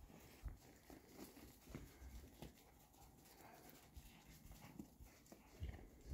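Near silence, with a few faint, soft thuds of horses moving in snow.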